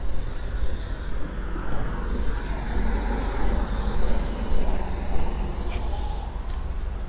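Road traffic going past: a steady rumble of passing vehicles.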